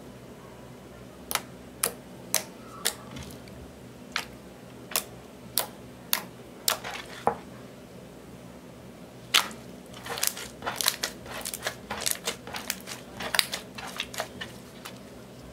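Clear slime being poked and squeezed by hand, making sharp wet popping clicks as air pockets burst: about ten separate pops, then, after a pause, a quicker run of crackling pops as it is squeezed in the fists.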